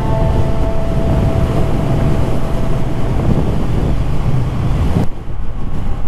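Triumph Thruxton R's parallel-twin engine running under a ride, with strong wind buffeting the microphone over it. About five seconds in, the rushing wind abruptly drops away and the engine's low rumble is heard more plainly.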